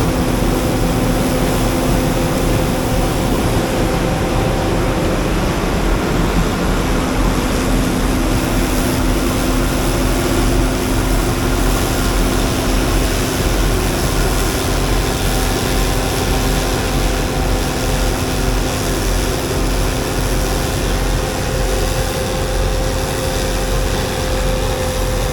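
Combine harvester running steadily: a constant engine drone with a held low hum.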